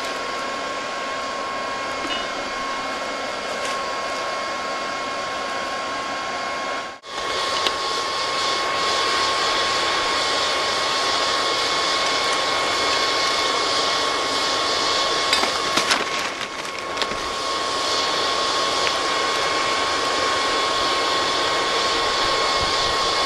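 Handheld hair dryer running steadily as the air blower for a cinder-block charcoal forge, a rushing blow with a constant high whine. It breaks off for an instant about seven seconds in and comes back louder and hissier.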